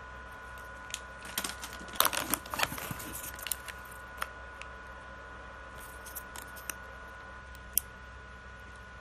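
Plastic snack wrappers crinkling and crackling as they are handled, densest about two to four seconds in, then a few scattered crackles.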